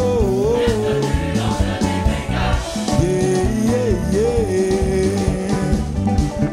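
Live gospel praise-band music with drums and bass keeping a steady beat. A held, wavering melody line comes near the start and again about three seconds in.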